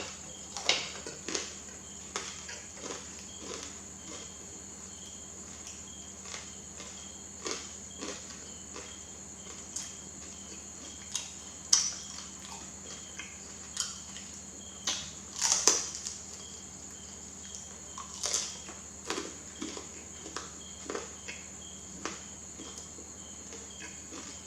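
Close-miked chewing of banana: irregular soft, wet mouth clicks and smacks, a few louder, over a steady high-pitched hiss.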